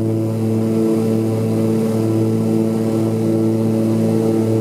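Twin Pratt & Whitney R-985 radial engines of a Grumman G-21A Goose amphibian running at takeoff power during a water takeoff run, heard inside the cabin as a steady propeller drone.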